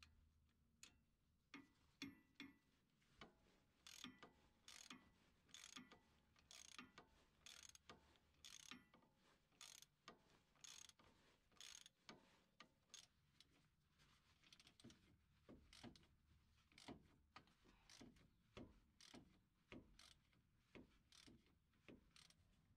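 Socket ratchet wrench clicking in repeated short strokes, about two a second, as it works the bolts on a Jeep Wrangler JK front driveshaft flange.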